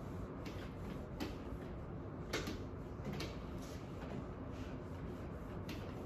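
Whiteboard eraser wiped across a whiteboard in quick back-and-forth strokes: a series of short, irregular swishes, the loudest about two and a half seconds in, over a steady low room hum.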